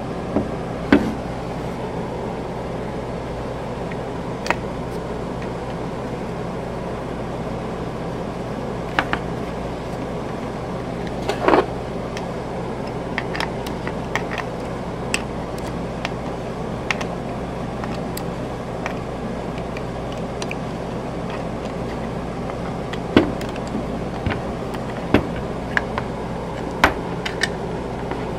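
Scattered clicks and knocks of a socket wrench and wooden block being handled while the bolts of a drill mount are tightened, a dozen or so at uneven intervals, over a steady mechanical hum.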